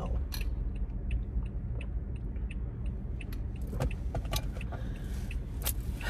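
Car interior: steady low road and engine rumble, with a light regular ticking about three times a second and a few louder clicks and rattles.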